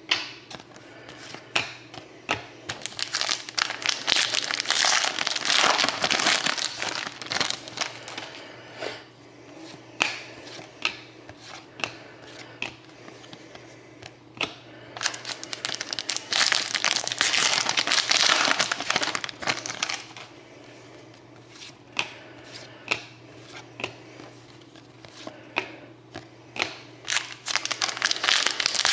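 Trading-card pack wrappers crinkling and rustling as packs are opened and handled, in two longer loud stretches with many sharp clicks between.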